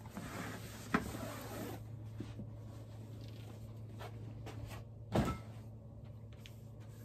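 A fitted vinyl cover being pulled up and off an air compressor: rustling and sliding for about the first two seconds, with a sharp click about a second in. A single knock follows a little past five seconds, over a steady low hum.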